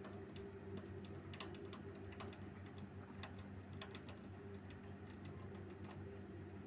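Pet rat gnawing on the metal wire bars of its cage: irregular sharp clicks and scrapes of teeth on metal, over a steady low hum.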